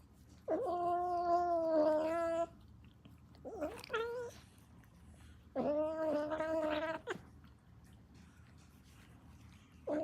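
Kitten yowling in long, drawn-out, steady calls of about two seconds each, with a shorter wavering call between the first two and another call starting near the end.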